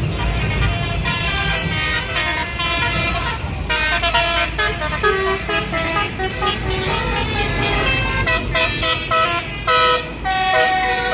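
Basuri telolet horn on a passing tour bus playing a fast tune in short stepped notes over the low rumble of traffic. The notes come thickest and most choppy in the second half.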